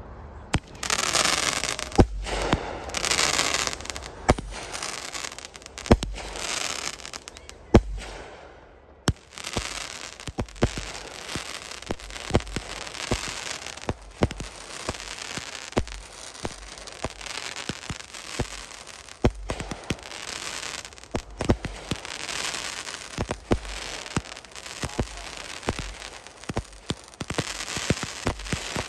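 350-gram consumer firework cakes firing: an irregular string of launch thumps and aerial bursts about a second apart, with crackling between the shots.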